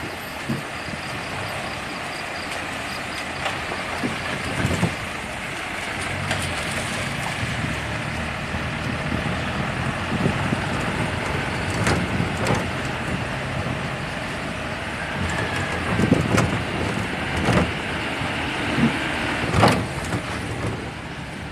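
Road noise heard from inside a moving vehicle on a wet, rough road: a steady rumble of engine and tyres, with several sharp thumps as it hits bumps. The thumps are loudest in the second half.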